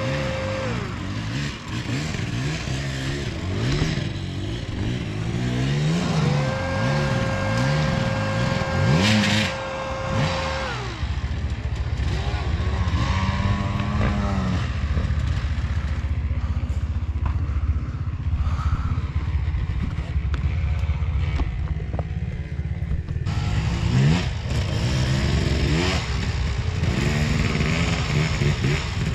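Enduro motorcycle engines revving, the pitch rising and falling over and over as the throttle is worked, with some clatter. A steady high tone is held for a second or so at the start and again for several seconds from about six to ten seconds in.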